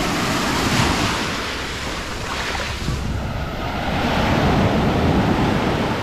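Small sea waves washing in on the shore, with two swells about four seconds apart and wind buffeting the microphone.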